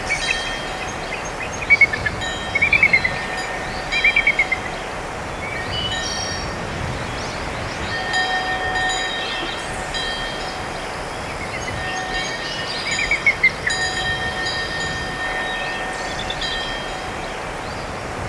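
Ringtone from a Samsung Galaxy Stellar phone, played through the phone's speaker: a steady rushing hiss with held bell-like tones at several pitches. Short runs of quick, high chirping break in four times.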